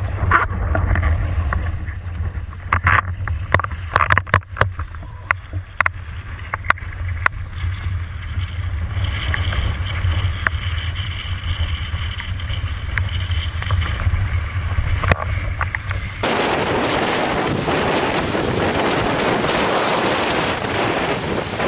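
Wind and water on a boom-mounted GoPro on a windsurfer: a deep steady rumble with sharp knocks and splashes, most of them in the first half. About three-quarters of the way through it cuts to a steadier, brighter rush of wind on the microphone.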